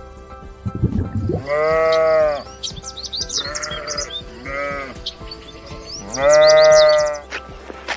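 Sheep bleating four times: a long call, two shorter wavering ones, then another long call, over background music.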